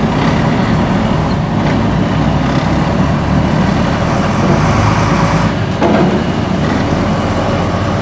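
Truck engine running steadily, heard from inside its cab as it creeps through a corn field during silage harvest.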